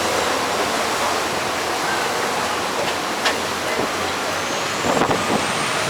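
Steady rushing noise of a boat under way on a rocking sea, water and wind mixed together, with a couple of faint knocks.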